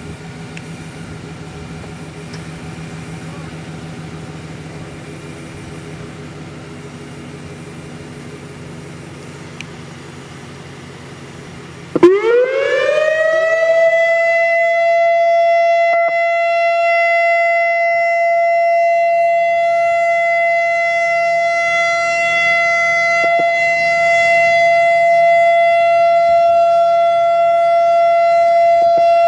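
Turkey Point nuclear plant's emergency warning siren starts up about twelve seconds in, its pitch rising over a couple of seconds and then holding one steady, loud tone. Before it there is only a low, steady hum.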